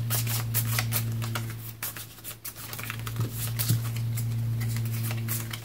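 Playing cards being handled and shuffled back into the deck: a quick, irregular run of light card clicks and snaps, over a steady low hum.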